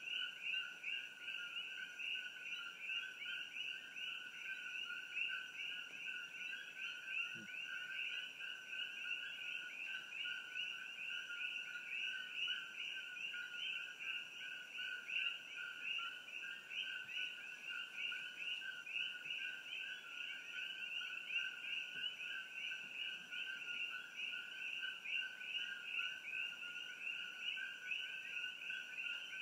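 Dense chorus of many coqui frogs calling at once, their two-note "ko-kee" calls overlapping into a continuous pulsing wall of sound. A faint steady high tone sits above it.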